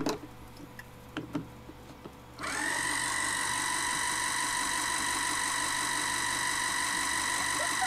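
A small motorized plastic kitchen gadget is switched on about two and a half seconds in, after a few light clicks of handling. Its motor then runs at a steady, even whine, churning the liquid inside.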